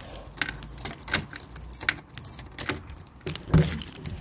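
A bunch of keys jangling and clinking in short, irregular bursts, with one heavier knock about three and a half seconds in.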